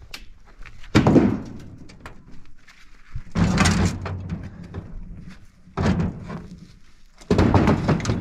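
Large rocks knocking against each other and the steel bed of a pickup truck as they are lifted and set down on the load: four heavy thuds, the second and last longer and rattling on for most of a second.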